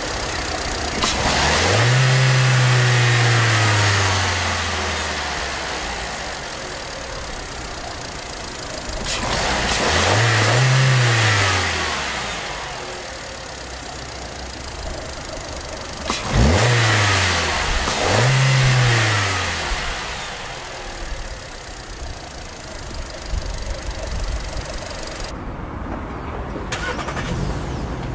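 Škoda Octavia 1.6 MPI four-cylinder petrol engine idling and revved four times. Each rev climbs quickly to the stationary rev limit of about 4000 rpm and then falls slowly back to idle. The last two revs come close together.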